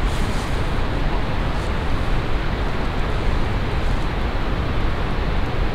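Steady rushing noise with a deep rumble underneath, and a few faint ticks.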